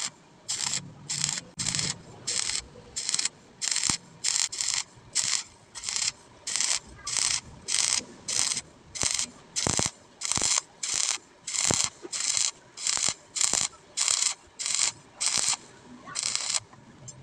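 Welding arc struck in short, regular bursts, about two a second, each a brief crackling hiss: stitch welding, a row of quick tack-like welds.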